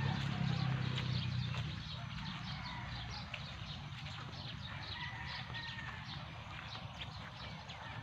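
Footsteps on grass and soil, with birds chirping around and a low rumble on the microphone that is strongest in the first second or two.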